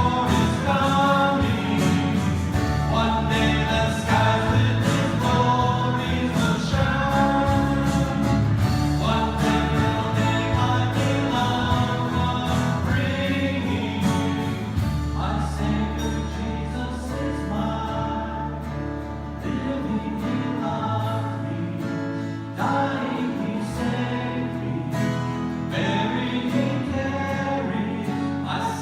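Worship song: a group of voices singing together over instrumental accompaniment.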